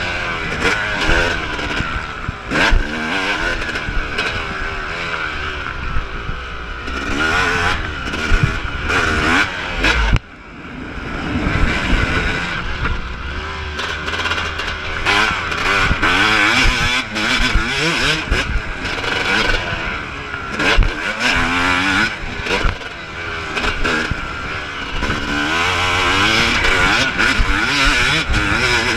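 Yamaha YZ250's single-cylinder two-stroke engine being ridden hard, its pitch rising and falling over and over with throttle and gear changes, and briefly dropping away about ten seconds in before climbing again. Occasional short knocks sound over it.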